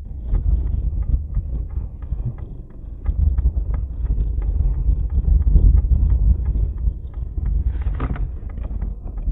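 Strong gusting wind buffeting the microphone as a heavy low rumble, with scattered rattles and knocks throughout and a sharper rattle about eight seconds in.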